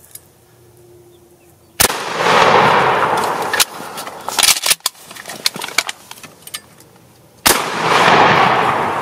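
Two loud sudden bangs about six seconds apart, each followed by a long rolling wash of noise that swells and then dies away, with scattered sharp knocks and clicks in between.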